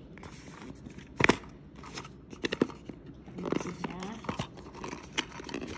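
A cardboard box being handled: scattered clicks, taps and rustles, with one sharp knock about a second in.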